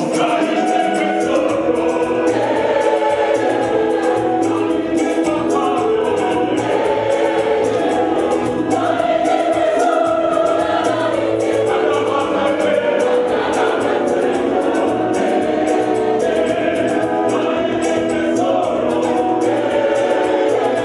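Gospel choir singing with instrumental backing, full and unbroken.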